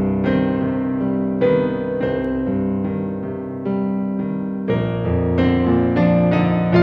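Slow piano music, probably from an electric piano: held chords with new notes struck about once a second, and a deeper bass line coming in near the end.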